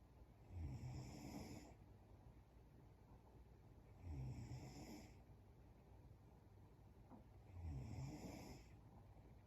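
A young woman snoring faintly in her sleep: three snores about three and a half seconds apart, each lasting about a second.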